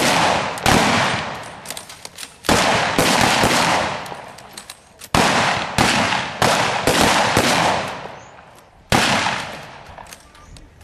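Blank gunfire in a staged firefight: about nine loud single shots at uneven intervals, some in quick pairs, each leaving a long echoing tail.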